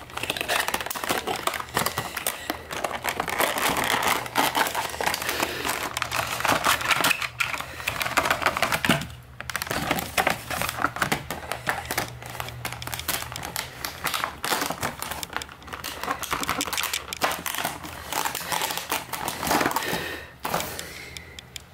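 Funko Pop figure's packaging being handled: the box opened and the clear plastic bag around the vinyl figure crinkling and rustling as it is unwrapped. A dense run of crackles, with a brief pause about nine seconds in.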